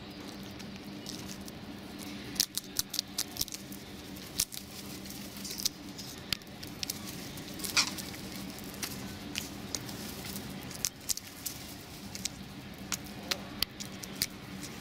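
Crow pecking at a peanut and cracking its shell: irregular sharp taps and cracks, some in quick runs, over a steady low background hum.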